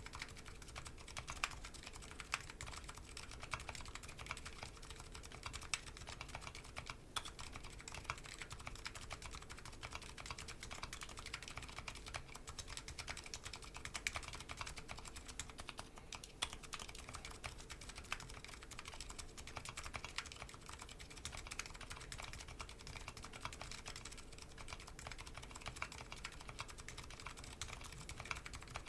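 Continuous typing on a Nuxros Kraze custom keyboard with MetaKeebs MetaPulse electrocapacitive switches and DCS Sleeper keycaps, picked up on an Audio-Technica AT897 shotgun microphone. It is a steady run of keystroke clacks with a few louder strokes here and there.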